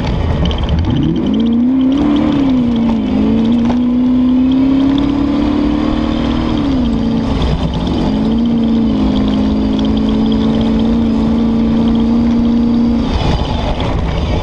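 Comp safari race car's engine, heard from inside the cabin under hard acceleration: the note climbs steeply about a second in, holds high and creeps upward, drops and picks up again twice, and falls away near the end as the throttle comes off. A rough rumble and rattle from the car crossing the rough ground runs under it.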